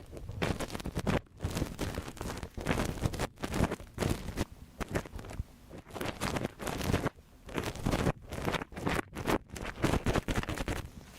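ASMR ear cleaning: an irregular run of scratching and rubbing strokes right at the microphone, with short pauses between them.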